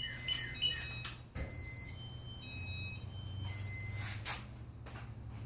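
A run of electronic beeps from a 1988 Casablanca Spirit of Saturn ceiling fan's control electronics, steady high tones stepping between several pitches in two sequences, over a low steady hum.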